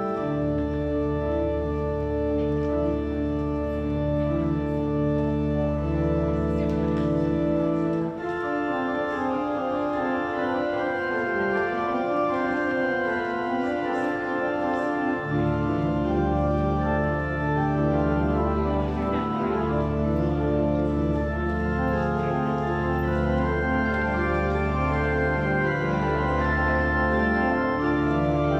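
Organ music: slow, held chords changing every second or two. The deep bass notes drop out about eight seconds in and return about seven seconds later.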